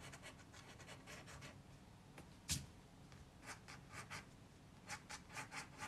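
Pencil sketching on paper: faint, short scratchy strokes in quick runs, with one sharper tap about halfway through.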